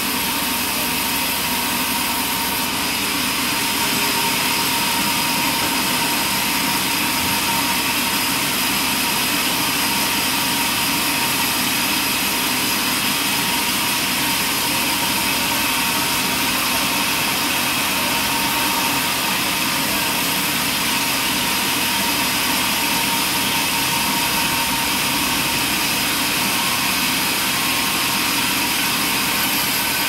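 Large band saw running with a steady whine while planks are fed through the blade and ripped lengthwise.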